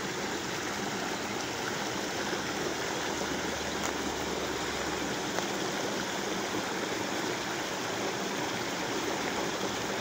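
Water of a small stream running, a steady, even rush.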